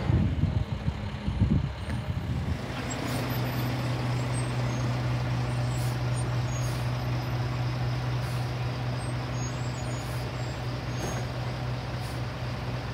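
A rear-loading garbage truck's diesel engine runs loud and uneven for the first couple of seconds. From then on a Sterling garbage truck with a McNeilus rear-loader body runs steadily with a low, even engine hum.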